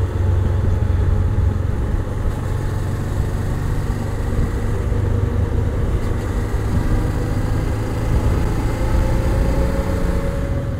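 Honda Transalp's V-twin engine running under way, heard from the rider's seat over wind rush. Its pitch sinks a little a few seconds in and climbs again near the end.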